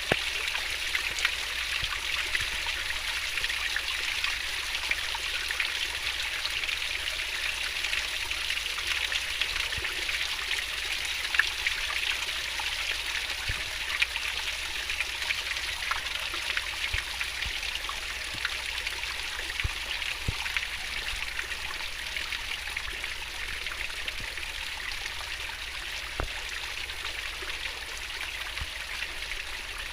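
Water of a small stream or river flowing fast and splashing over rocks, a steady gurgling rush dotted with small drip-like ticks.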